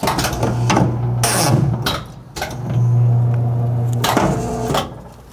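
Triumph 5260 electric guillotine paper cutter working through a cut on a stack of postcards: a steady motor hum with several knocks and clatters from the clamp, blade and paper stack.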